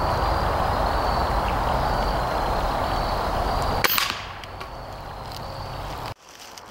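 Stoeger S4000-E .22 break-barrel pellet rifle, fitted with a built-in noise suppressor, firing a single shot about four seconds in: one sharp crack over a steady background rush.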